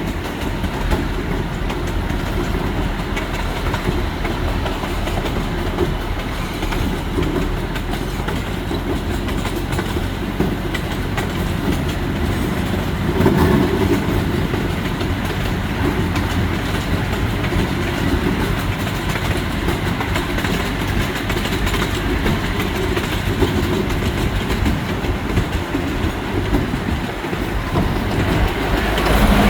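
Miniature amusement-park train running along its track, heard from the front car: a steady rolling rumble with the clatter of wheels over rail joints. It gets briefly louder about halfway through.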